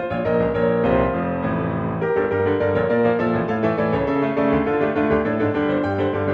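Background music led by piano or electric piano, held notes and chords at a steady level.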